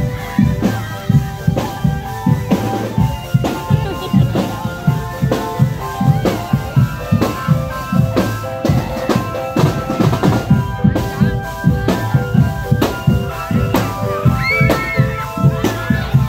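A drum band playing: a fast, steady beat on bass and snare drums under a melody of held notes.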